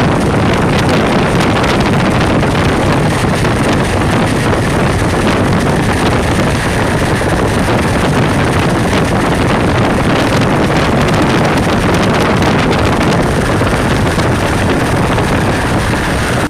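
Loud, steady roar of storm wind and heavy rain against a vehicle, with wind buffeting the microphone and fine crackling throughout; it cuts off suddenly at the end.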